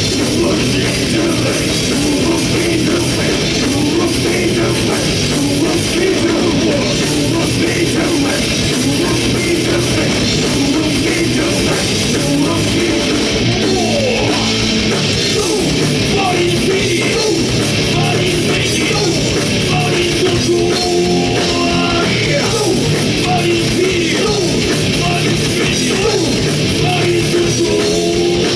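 A rock band playing live, loud and without a break: distorted electric guitar and drum kit, with some singing.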